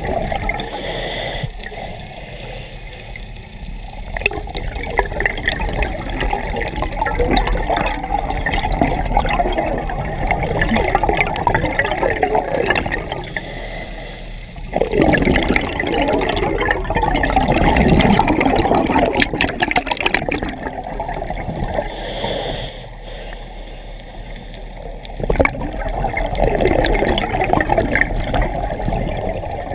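Scuba diver's regulator breathing, heard underwater through a mask-mounted camera: exhaled air bubbles out in three long, gurgling bursts, with quieter pauses between them for the inhalations.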